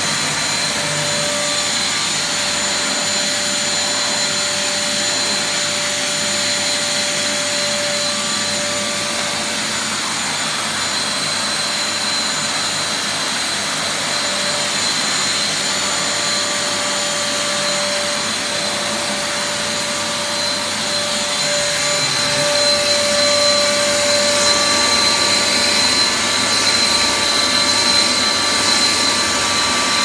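Caramba Auto 5.0 corded wet/dry canister vacuum cleaner running at full power: a loud, steady rush of air with a steady high whine, getting somewhat louder about two-thirds of the way through.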